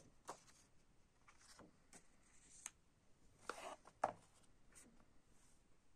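Paper and card being handled: faint rustles of a sheet being lifted and light taps of stiff card, with a sharp tap about four seconds in.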